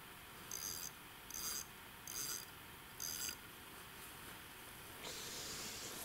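Carp reel's clutch giving line in four short bursts of rapid clicking, evenly spaced about a second apart, as a hooked carp pulls against the rod. Near the end a steadier rustling follows.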